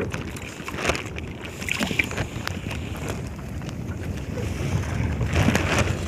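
Wind on the microphone and water around a small fishing boat at sea, with a few short light knocks.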